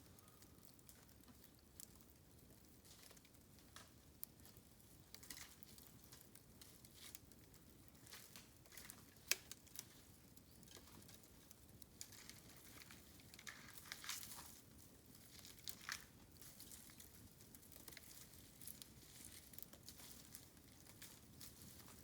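Bamboo bonfire crackling faintly, with scattered sharp snaps from the burning bamboo and one louder pop about 9 seconds in.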